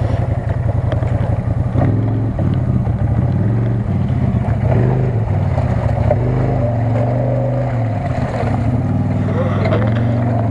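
CFMoto CF-800 side-by-side's V-twin engine running as it is driven through mud, its revs rising and falling several times.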